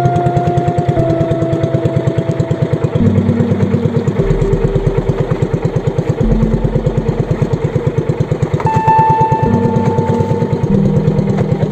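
Small outrigger fishing boat's engine running steadily, a fast, even putter.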